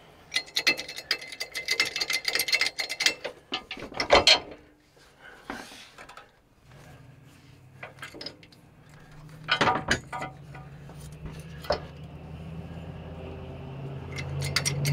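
Hand-tool work on metal: a run of rapid clicks for about four seconds, then scattered knocks and clanks. A low steady hum comes in about seven seconds in and grows louder near the end.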